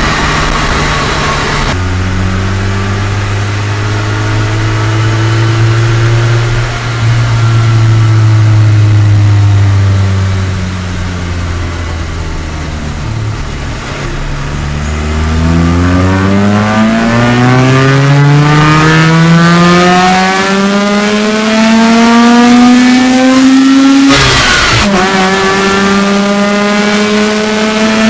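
Mazda RX-8's twin-rotor rotary engine heard from inside the engine bay, running steadily, easing off slightly, then pulling hard with its pitch climbing for several seconds. Near the end the pitch drops suddenly at an upshift and begins climbing again.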